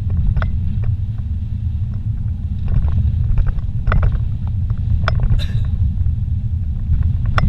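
Car driving along a paved road, heard from inside the cabin: a steady low rumble of tyre and engine noise, with occasional light clicks and knocks.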